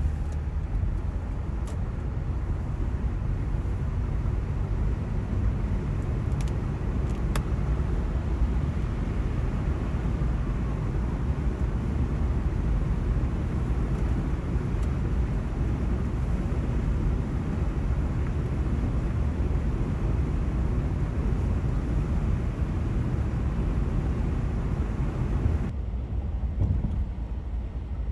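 Steady road and engine noise of a moving car, mostly low in pitch, with a few faint clicks; about 26 s in the higher hiss drops away.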